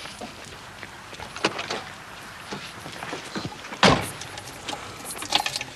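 A car door slamming shut with a heavy thud about four seconds in, amid smaller clicks and rustles.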